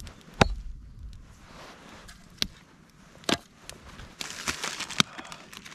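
Wood campfire crackling, with a few sharp pops, the loudest about half a second in. Near the end there is a burst of rustling.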